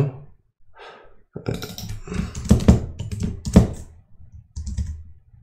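Typing on a computer keyboard: a run of key clicks from about a second and a half in to about four seconds in, with a few fainter taps near the end.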